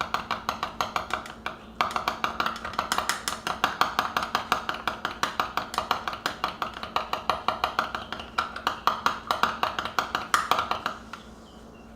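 Quick stirring in a cup, the stirrer clicking against the cup's sides about five times a second, mixing chocolate into a shot of espresso; the clicking stops about eleven seconds in.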